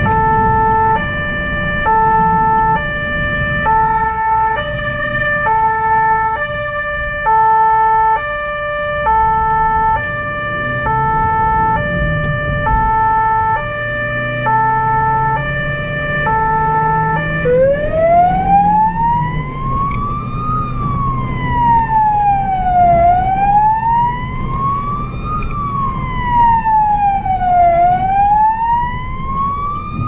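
Electronic emergency-vehicle siren on a blood-transport car, sounding an alternating two-tone hi-lo pattern. A little over halfway through it switches to a wail that rises and falls about every five seconds. The low rumble of the moving vehicle runs underneath.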